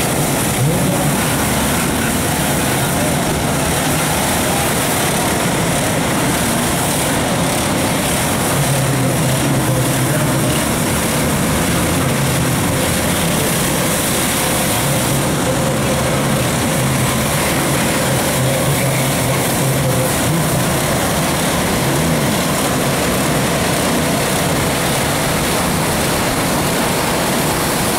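Pressure washers running, a steady low motor hum under the continuous hiss of water jets spraying onto motocross bikes.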